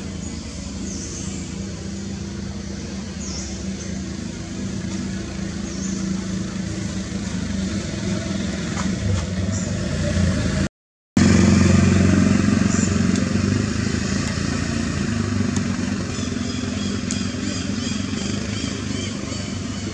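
A motor vehicle engine running with a steady low drone. It cuts out briefly about eleven seconds in and comes back louder.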